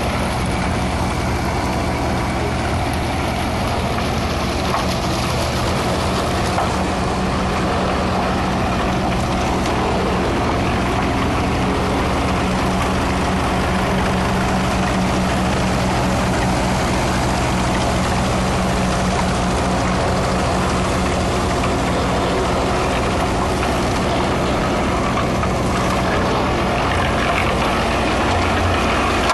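Vintage Ferguson tractor engine running at a steady speed, with a dense rushing noise over it.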